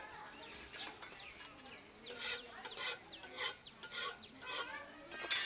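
Flatbread dough being patted between the palms, a run of soft slaps about every half second from about two seconds in.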